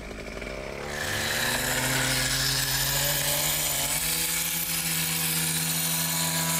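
Vibracoring rig: a motor-driven vibrator clamped to the top of a metal core tube starts about a second in, winds up in pitch for a few seconds, then runs steadily as it shakes the tube down into swamp sediment to take a core.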